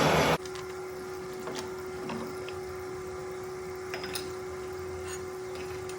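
A loud, even noise cuts off abruptly just after the start. A steady machine hum holding one tone follows, with a few faint light clicks.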